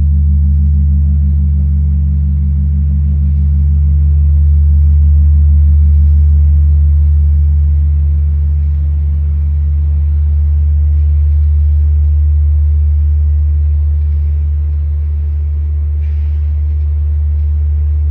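The Metropolitan Cathedral's great bell, Santa María de Guadalupe, humming on after being struck: a deep steady hum of a few low tones, the highest with a fast pulsing beat, slowly swelling and easing with no new strike.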